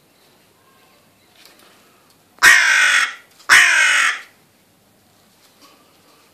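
Hooded crow giving two loud caws about a second apart, each a little under a second long and sagging slightly in pitch.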